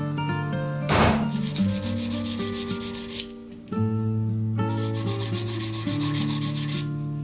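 A single sharp knock about a second in, as a punch is struck on a brass knife end cap held in a vise, then a flat hand file rasping back and forth across the brass top in two spells of strokes, filing it flush. Background guitar music plays underneath.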